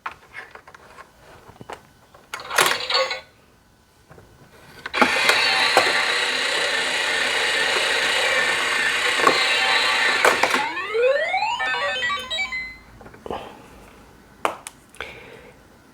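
Toy capsule gumball machine playing its electronic jingle through a small built-in speaker for about five seconds, ending in a rising sweep. A few sharp clicks and rattles of the toy before and after.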